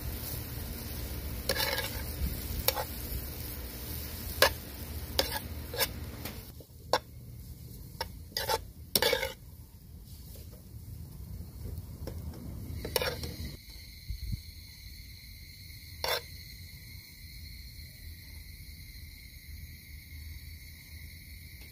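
Stir-fried noodles sizzling in a wok as a metal ladle and tongs toss them, with sharp clacks of metal on the pan. About six seconds in the sizzle drops away, leaving scattered clinks and a faint steady high tone.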